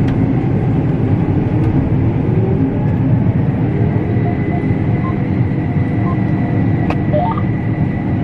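Combine harvester running steadily, heard from inside the cab: a low engine drone with a thin high whine over it, and a couple of sharp clicks, one about seven seconds in.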